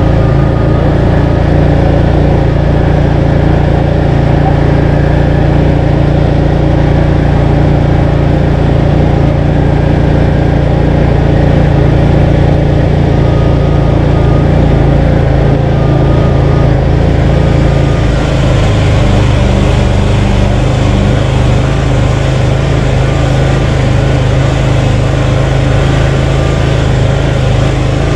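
The Krosh all-terrain vehicle's Loncin 30 hp petrol engine running steadily under load as it drives along. About two-thirds of the way through, the engine note shifts slightly and a higher rushing noise grows on top.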